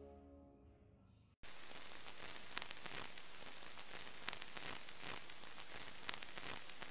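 The last of the background music fades out, then about a second and a half in a steady static hiss starts, with scattered crackles and pops through it.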